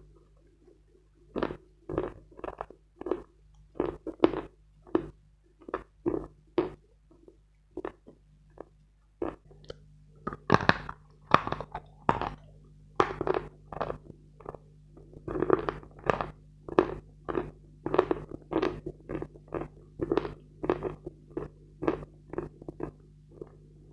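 Close-miked chewing of dense, dry Khrapovsky chalk: a steady run of sharp crunches, about two a second. The crunching thins out for a couple of seconds about a third of the way in, then comes back louder and faster.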